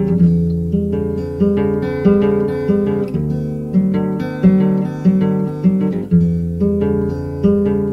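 Acoustic guitar playing a slow plucked instrumental passage. Notes are picked out about every two-thirds of a second over ringing bass notes.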